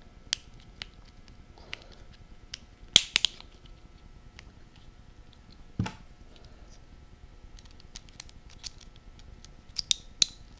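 Scattered sharp clicks and light plastic handling noises from hands working the LT1 wiring harness main plug and its wires as it is reassembled after repinning. The loudest clicks come in a quick pair about three seconds in, another near six seconds, and a few near the end.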